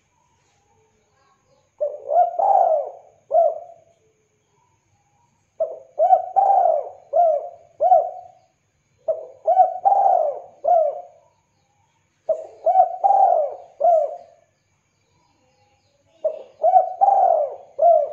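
Spotted dove cooing: five phrases of several coos each, repeated every three to four seconds.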